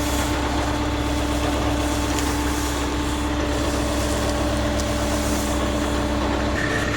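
Self-propelled swather's engine running steadily with a constant hum; near the end a higher whine comes in and the low hum changes.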